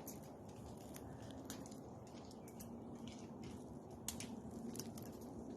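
Tree seed pods dropping through the branches and landing around, an irregular scattering of light ticks and taps like sleet, with one sharper tick about four seconds in.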